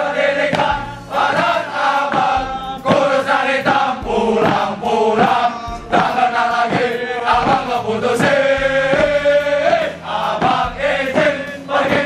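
A large group of men chanting loudly in unison in a rhythmic cheer, with regular sharp beats from stamping feet marking the rhythm.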